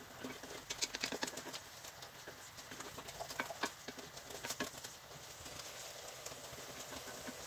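Wooden spoon scraping and tapping against the bottom of an enameled Dutch oven, stirring caramelized onions while deglazing: loosening the browned onion sugars stuck to the pot with added cooking wine. Faint irregular taps and scrapes, thinning out after about five seconds.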